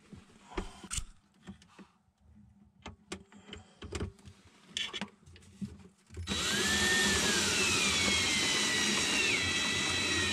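Power drill driving a screw through a long screw-holding extension bit. First come a few light clicks and knocks of handling. About six seconds in, the drill runs for about four seconds with a whine that slides down in pitch.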